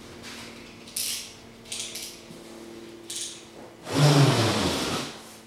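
Handling a large cardboard shipping box: a few short scrapes, then a louder rub of hands across the cardboard lasting about a second, about four seconds in.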